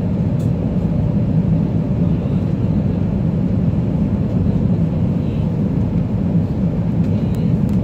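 Steady low rumble of engine and airflow noise inside an Airbus A320's passenger cabin while the airliner descends on approach.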